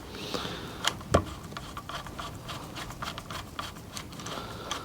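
Light scattered clicks and taps from handling small wires and electrical parts, with two sharper clicks about a second in.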